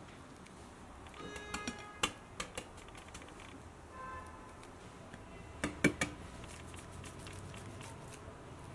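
Tea egg shells being cracked and peeled by hand: scattered sharp taps and crackles, with a cluster of the loudest taps a little before six seconds in.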